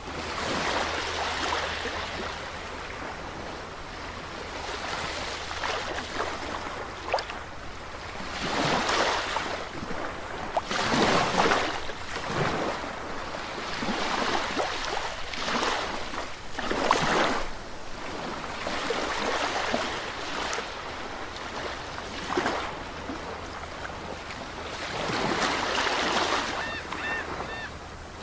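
Sea waves breaking on a beach, the surf swelling and washing back every few seconds. Near the end there are three short high chirps.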